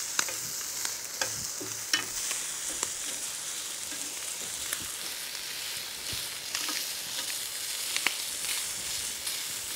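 Shrimp sizzling on a hot cast-iron grill pan, a steady hiss, broken by irregular sharp clicks of metal tongs turning them against the pan.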